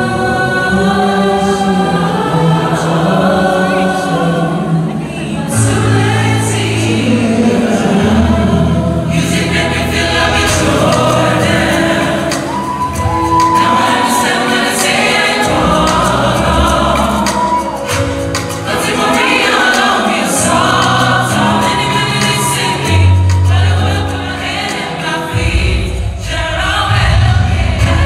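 A live mixed vocal group singing together in harmony into microphones, with bass notes and drums underneath.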